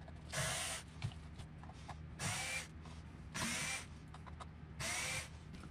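Ryobi cordless drill/driver with a hex bit whirring in four short bursts, each rising in pitch as the motor spins up, backing screws out of a plastic RC car chassis cover.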